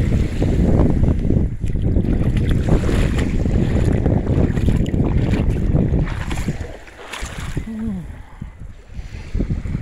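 Wind buffeting the microphone in a heavy rumble over small waves lapping in the shallows at a sandy shore; the wind eases about seven seconds in.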